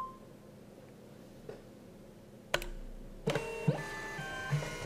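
Dymo LabelWriter 450 Twin Turbo thermal label printer printing a label: a sharp click about two and a half seconds in, then its motor feeding the label out with a whine that steps through several pitches for about a second and a half.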